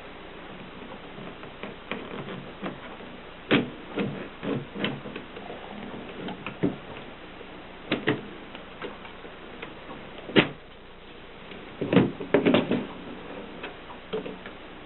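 Mercedes manual typewriter clacking: a dozen or so sharp, irregularly spaced clacks of its mechanism, with a quick cluster of several about twelve seconds in.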